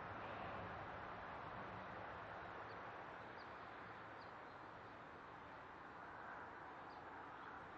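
Faint outdoor ambience: a steady hiss with a few brief, faint, high bird chirps scattered through it.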